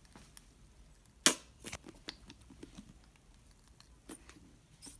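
A sharp plastic click about a second in, then a second click and a few fainter clicks and handling noises: a plastic lotion bottle being opened and handled.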